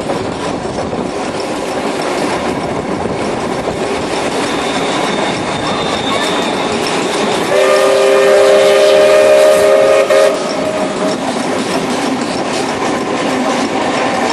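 Train of timber-bodied carriages running at speed, heard from an open carriage window: a steady rush of wheels and wind with a clickety-clack over the rail joints. About halfway through, a train's chord horn sounds for about three seconds, the loudest thing heard.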